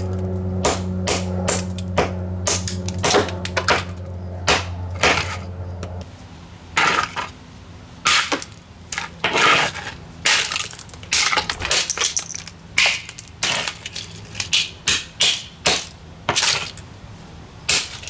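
Repeated hammer blows smashing an Impress table fan's electric motor against concrete. For the first six seconds the strikes come about every half second over a steady electric hum from the motor, which cuts out suddenly. After that the blows come irregularly.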